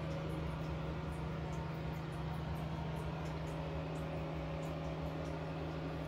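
Steady low mechanical hum, as of an indoor appliance or fan, with faint short high ticks scattered throughout.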